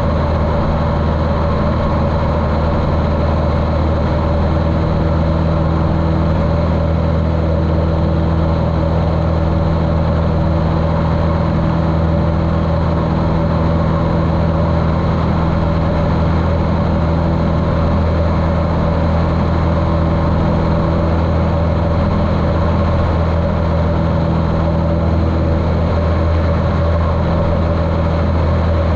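Continental O-200 four-cylinder engine of a 1973 Cessna 150L running steadily in flight, heard muffled through a waterproof camera case, with a steady low drone and even level.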